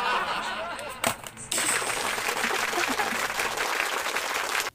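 A single sharp snap from a cardboard toy pistol firing, about a second in, after a brief voice. From about a second and a half in, a steady dense hiss-like noise takes over, then cuts off suddenly at the end.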